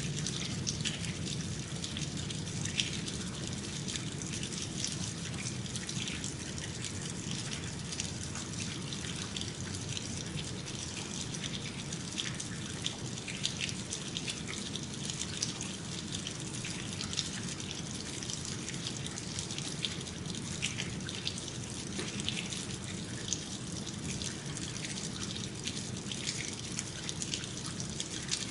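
Melting snow in a city: meltwater dripping and trickling, with many small irregular drops over a steady wash of running water and a low background rumble.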